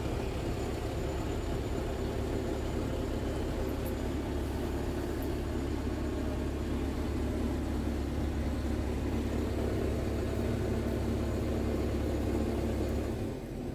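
Scania G tractor unit's diesel engine idling steadily, heard from inside the cab as a low rumble. It cuts off near the end.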